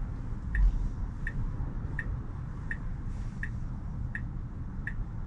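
Turn-signal indicator ticking in a Tesla Model Y's cabin, about three clicks every two seconds, over a low rumble of cabin and road noise.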